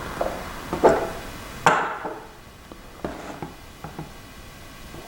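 Sharp pry tool clicking and tapping at the small gyroscope bracket inside a smartphone, with one loud sharp snap about a second and a half in as the bracket pops free, followed by a few lighter ticks.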